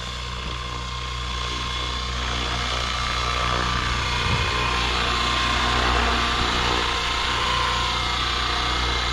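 Align T-Rex 650X electric RC helicopter in flight: the steady whine of its motor and drivetrain over the drone of the rotors, growing a little louder toward the middle.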